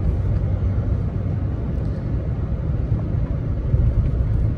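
A 2013 GMC Sierra 2500 HD pickup on the move: a steady low rumble of engine and road noise heard from inside the cab.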